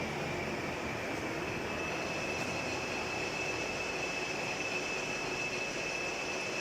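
Milling-sawing machine for small-diameter logs running steadily, a constant high whine over its mechanical noise; the whine climbs slightly in the first couple of seconds, then holds.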